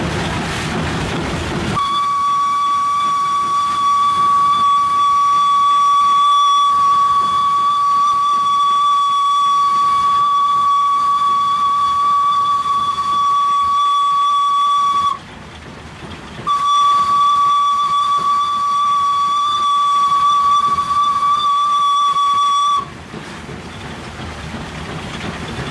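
Steam whistle of a WP-class 4-6-2 steam locomotive, heard from inside its cab: two long blasts on one steady pitch, the first about thirteen seconds long and the second about six, with a short break between them.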